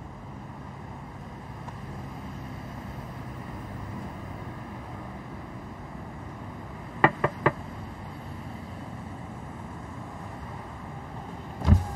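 Steady low background hum, with three quick sharp taps about seven seconds in and one heavy low thump near the end.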